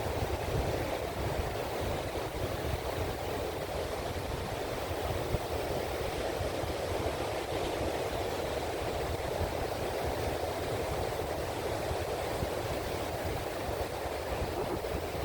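Wind and ocean surf on a shoreline: a steady, even rush with a flickering low rumble underneath and no separate crashes standing out.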